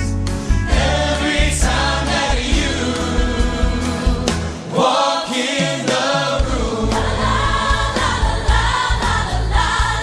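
A group of singers singing together over a live pop band with bass and drums, in a medley of 1960s hits. About five seconds in, the bass and drums drop out for a second and a half while the voices carry on, then the band comes back in.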